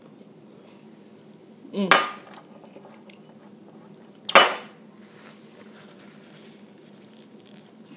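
Two sharp knocks of tableware set down hard, about two and a half seconds apart, each with a brief ring, over a faint steady room hum.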